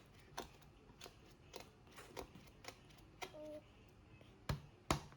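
A baby eating puréed baby food off a spoon: scattered small clicks and lip smacks about every half second, with two louder clicks near the end.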